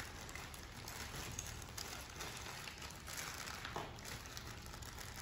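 Faint rustling and light handling noises as small drawer parts are picked out of a plastic bag and among paper instruction sheets, over a low steady room background.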